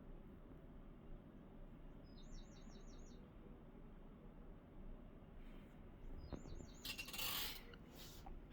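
A bird chirping faintly in the background: a short, quick trill about two seconds in, repeated about six seconds in. A brief rustling noise comes around seven seconds in.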